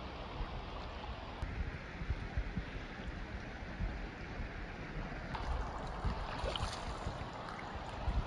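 Outdoor riverside ambience: a steady hiss of moving water and air, with irregular low gusts of wind buffeting the microphone.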